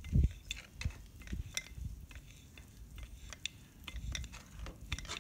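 Hand grease gun being pumped to pack a tiller's PTO dog clutch housing with grease: irregular clicks and small knocks of the gun's mechanism and nozzle against the housing, with a low thump just after the start.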